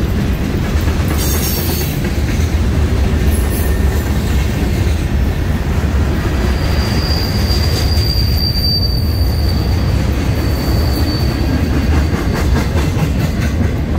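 Freight cars of CSX train Q421 rolling past: a steady heavy rumble of steel wheels on rail, with a thin high wheel squeal that sets in about a third of the way in and holds for several seconds.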